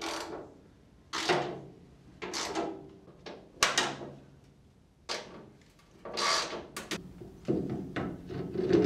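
Parts being handled and fitted: a series of about seven short knocks and scrapes, roughly a second apart.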